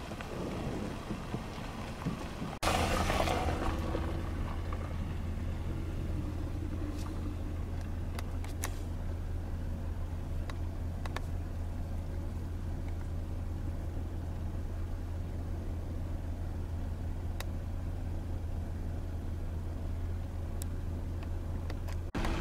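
Steady low rumble of a car driving. It starts abruptly about two and a half seconds in and cuts off abruptly just before the end, with a few faint clicks over it.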